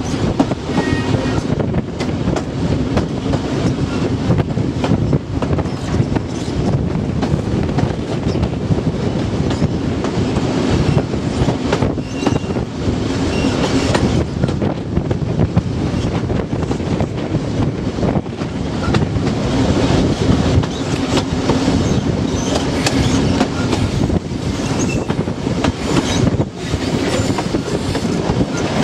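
InterCity 125 (HST) train running at speed, heard from an open window of a Mark 3 coach: a steady rumble of wheels on rail with irregular clicks, a low steady hum, and wind rush.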